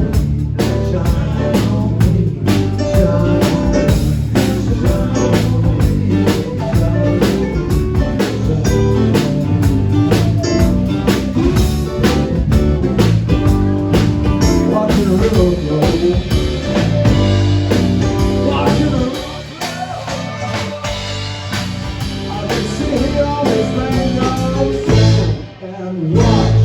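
Blues-rock music: a band with guitar and drums, with a singing voice. It gets quieter and thinner about two-thirds of the way in, then breaks off briefly near the end.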